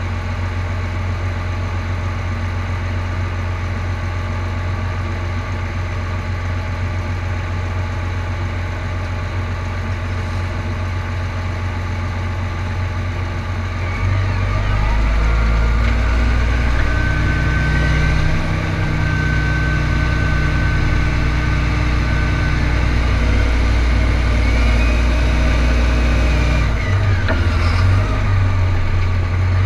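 A John Deere tractor's six-cylinder diesel engine idling steadily. About halfway through it revs up and the tractor drives off, the engine note climbing and a high steady whine coming in as it moves.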